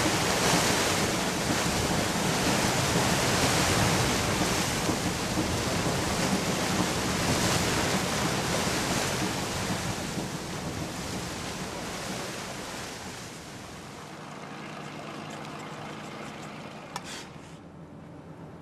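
Wind buffeting the microphone and water rushing aboard a moving boat, with a low steady hum beneath. The noise dies down over the second half, leaving the quieter hum and a single click near the end.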